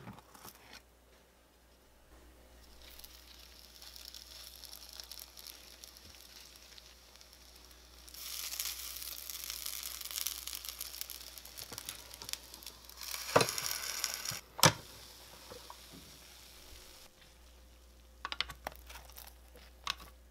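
Croissant dough sizzling on the hot plates of a flip-style waffle maker, loudest for several seconds in the middle, then two sharp clacks about a second apart from the waffle iron's lid and hinge. A few lighter clicks follow near the end.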